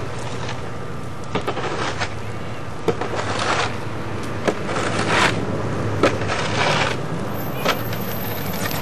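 Footsteps crunching in fresh snow, roughly one a second and uneven, over a steady rushing background.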